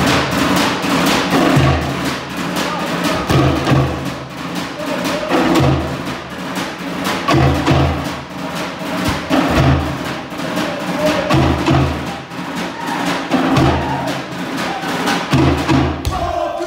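Cook Islands drum ensemble: a rapid, dense rhythm on wooden log drums with a deep skin drum beat about every two seconds. Near the end the drumming breaks off and voices call out.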